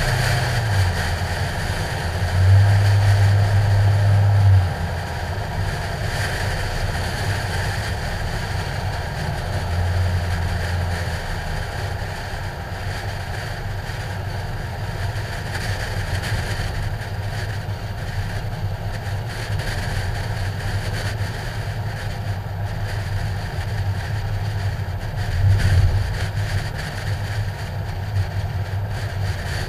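Ford Mustang engine running as the car drives along a street, heard from a hood-mounted action camera in its protective case, with wind noise on the microphone. The engine grows louder for a couple of seconds a few seconds in, and briefly again near the end.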